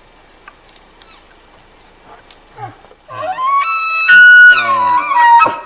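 Bull elk bugling: a low note rises into a loud, high whistle, then falls away, followed by a few short grunts near the end.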